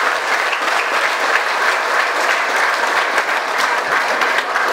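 A congregation applauding: many hands clapping steadily together.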